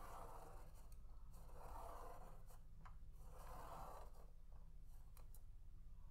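Fineliner pen tip scratching on paper as it is drawn round with a clear plastic spirograph gear wheel inside a toothed ring, in three scratchy strokes about a second and a half to two seconds apart, with a few light clicks. A faint steady low hum runs beneath.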